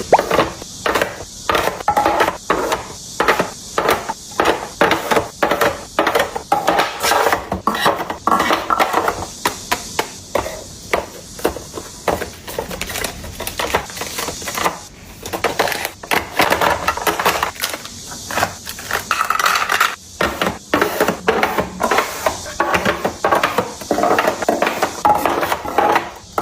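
Containers and food items being handled and set down during restocking: a fast, continuous run of taps, knocks and clinks, several a second.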